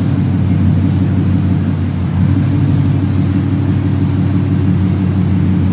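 Ford Mustang GT's 5.0 Coyote V8 running steadily through a catless Carven race X-pipe with dumps, a loud, low, even exhaust note.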